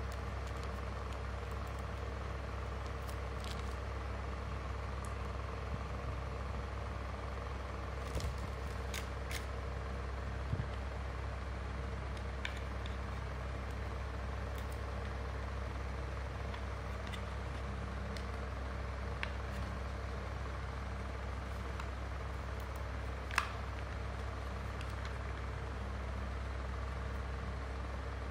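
A steady low hum of background machinery, with a few faint clicks of hard plastic parts being handled; the sharpest click comes near the end.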